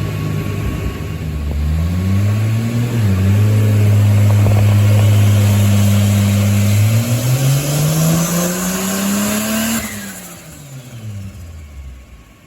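Turbocharged Toyota 2JZ-GE VVT-i inline-six pulling under load on a dyno at about 7–8 psi of boost. The engine note climbs, holds steady and loud for a few seconds, climbs again, then the throttle is lifted about ten seconds in and the revs wind down.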